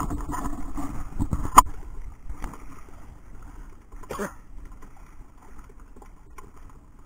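Knocks and clicks of a fishing handline and gear being handled in a small wooden outrigger boat. They are densest in the first two seconds, with a sharp knock about one and a half seconds in, then turn quieter with a single knock around four seconds in.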